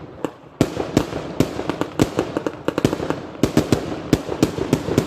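F3 consumer firework battery ('Iskra Line Wzór') firing: a rapid, irregular run of sharp bangs, several a second, over crackling hiss, after a brief lull at the start.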